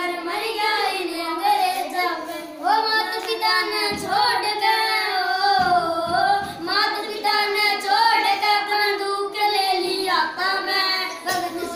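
A boy singing a song without accompaniment, his voice rising and falling in pitch.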